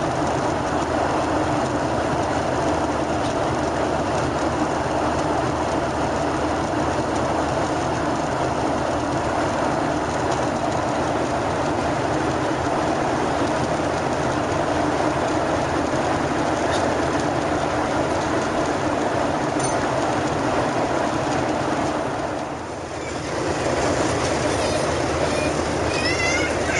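Steady roar of a Boeing 737-800 in cruise heard inside the cabin, engines and airflow. It drops briefly about 23 seconds in, and near the end a young child starts crying over the roar.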